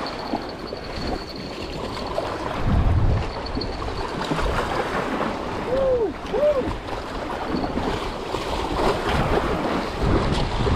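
Sea water washing and sloshing, with wind buffeting the microphone.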